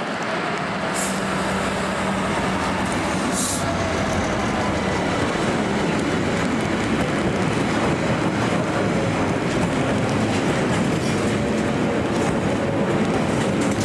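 Freightliner Class 66 diesel freight locomotive passing, its EMD two-stroke engine humming steadily. It is followed by a long rake of box wagons rumbling and clattering over the rails, growing slowly louder. Two short hisses sound about a second in and again at three and a half seconds.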